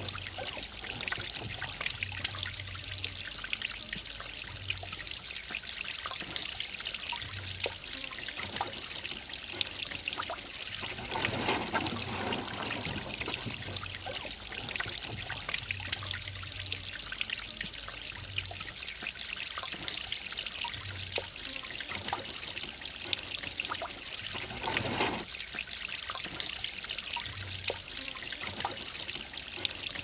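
Water from a small rock waterfall trickling and pouring steadily into a shallow pond, with a couple of brief louder swells of splashing.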